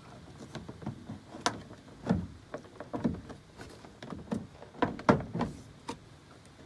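Plastic door trim panel of a Honda Element knocking and rattling against the door as it is tugged upward: a string of irregular thumps and clicks. The panel won't lift free because the inside door handle still holds it.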